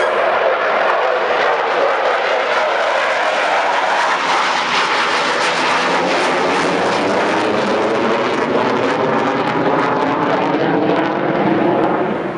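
A military fighter jet's engines running loud at takeoff, a steady dense roar with a shifting, phasing quality as the jet moves past. The sound drops away sharply at the very end.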